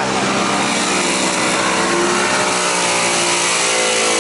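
Off-road vehicle engine running hard under load in deep mud, its pitch rising and falling with the throttle.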